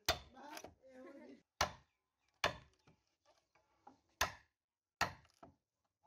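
Sharp knocks of a hand tool striking wood, about seven irregular blows with short ringing tails, as in shaping a wooden dhol drum shell.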